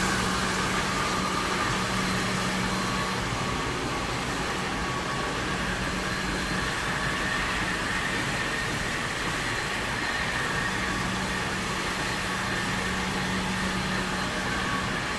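ICE i32BT walk-behind floor scrubber-dryer running steadily: a constant machine noise with a low hum and a steady whine above it.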